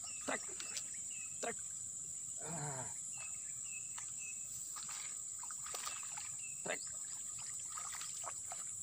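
Steady high-pitched drone of an insect chorus, with short repeated chirps, several quick falling calls, and one brief low call about two and a half seconds in.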